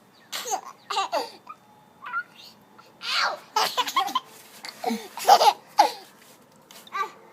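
Baby laughing in a string of short bursts of giggles, with brief pauses between them.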